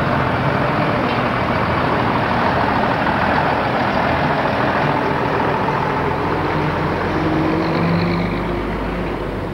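Engine of a vintage front-engined coach running as it drives slowly past close by. Its engine note rises a little near the end as it passes, then fades.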